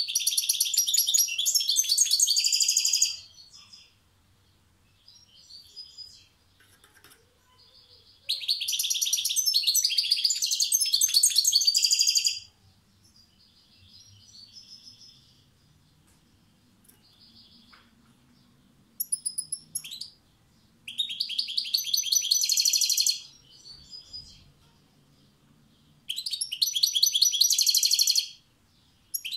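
European goldfinch singing: four bursts of rapid, high-pitched twittering song, each two to four seconds long, with softer calls in the pauses between them.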